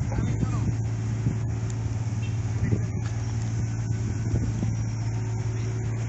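Engine of a mini amphibious swamp excavator running steadily with a strong, even hum as its arm is worked and the bucket dips into the water.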